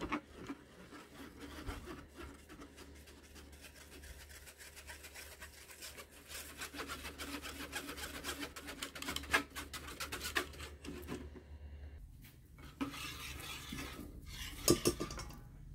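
Wire whisk scraping rapidly against a fine-mesh metal strainer, pressing batter and undissolved sugar through the mesh so it dissolves faster. The scraping stops about eleven seconds in, followed by softer scraping and a couple of metal knocks near the end.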